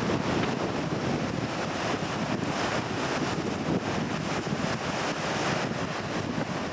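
Strong wind buffeting the microphone over the steady roar of surf breaking on a rocky shore.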